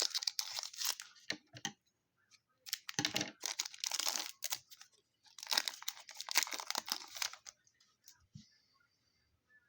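A 2020 Donruss Optic baseball card pack wrapper being torn open and crinkled, in three rustling bursts over about seven seconds before it goes quiet.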